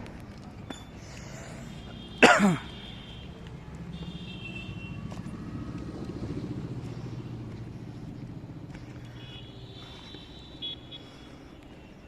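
A motor vehicle passing, its low engine hum swelling and fading over several seconds, with a sharp, loud squeal falling steeply in pitch about two seconds in and faint high chirps now and then.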